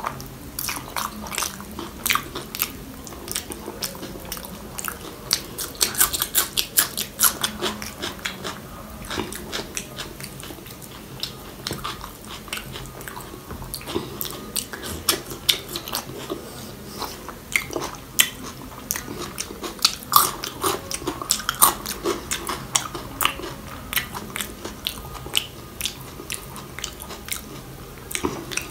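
Close-miked chewing of mouthfuls of rice and kidney-bean curry: a constant run of wet smacks and sharp mouth clicks.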